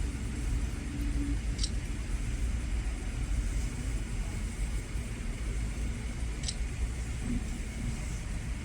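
Steady low background rumble, like distant traffic, with two brief high-pitched ticks, one early and one past the middle.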